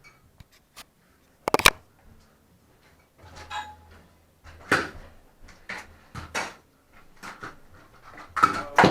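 Broken pieces of a porcelain toilet tank being picked up and dropped, a series of sharp clinks and clunks, loudest about a second and a half in and again near the end.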